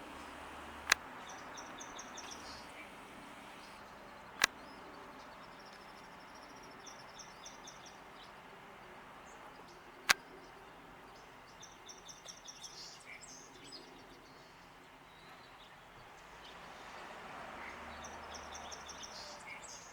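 Small songbirds singing short, high trills of quickly repeated notes every few seconds over a steady outdoor background hiss. Three sharp clicks, the loudest sounds, come about a second in, about four seconds in and about ten seconds in.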